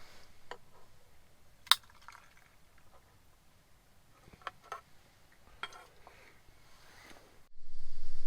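A few sharp clinks of utensils against a pot or dishes, spaced a second or more apart, the loudest about two seconds in. Near the end a much louder steady noise starts suddenly.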